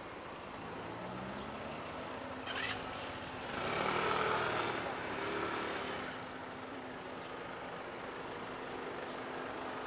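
A motor vehicle passes close by on a narrow street, its engine noise swelling to a peak about four seconds in and fading away, over a steady low engine hum.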